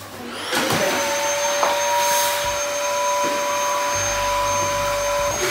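An electric motor starts with a brief rising whine, then runs steadily with a loud rushing noise and a constant high whine, of the vacuum-cleaner kind.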